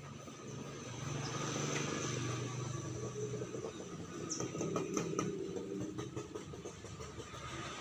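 A motor vehicle's engine running somewhere off the picture: a low hum that swells and then fades after a few seconds, with a few light clicks over it.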